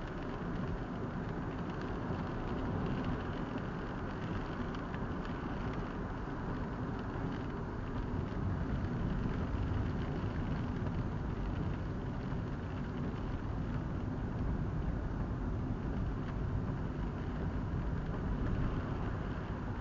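Steady road noise heard from inside a moving car: tyres on a wet road surface with the engine underneath.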